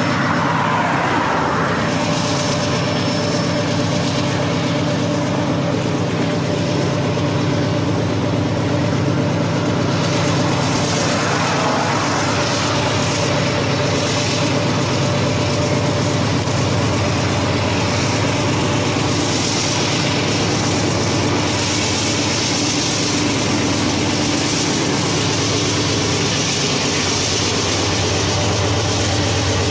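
Train's diesel locomotives running, a steady engine drone with a constant hum.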